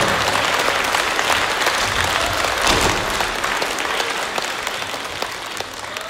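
Audience applauding, gradually fading.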